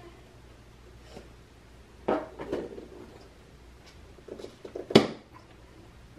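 Aftermarket mesh grille knocking and clattering against a plastic front bumper cover as it is pressed into place by hand: a few knocks about two seconds in, a quick run of small clicks, then a sharp knock about five seconds in, the loudest.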